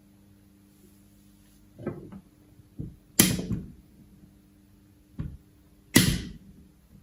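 A series of about five knocks and clatters, like objects being set down or handled, the loudest about three seconds in and again about six seconds in, over a faint steady hum.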